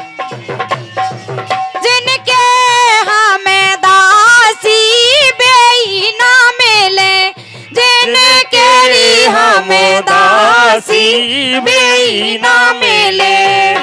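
Bundeli Diwari folk music: drums beating a rhythm under a loud, wavering high melody line that bends and slides in pitch.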